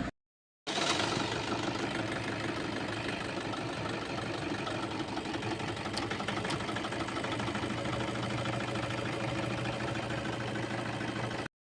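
Toyota engine idling roughly with a cylinder misfire, which the uploader attributes to an open fuel injector circuit. The sound drops out briefly just after the start and stops abruptly shortly before the end.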